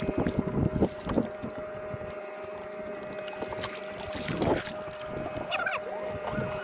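Kayak paddle strokes dipping and splashing in lake water, a cluster of strokes about a second in and another around four and a half seconds, over a steady faint hum.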